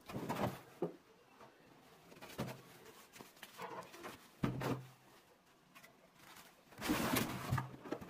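Cardboard box and molded pulp packaging rustling and knocking as items are lifted out by hand, in irregular bursts, loudest near the end.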